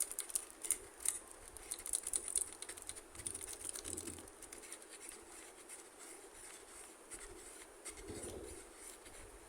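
Small plastic toy pieces being handled: quick light clicks, taps and scratches, busiest in the first few seconds and growing sparser toward the end.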